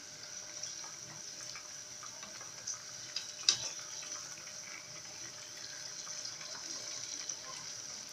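Semolina jalebi deep-frying in hot oil in a pan, a steady sizzle and bubble, with a single sharp click about three and a half seconds in.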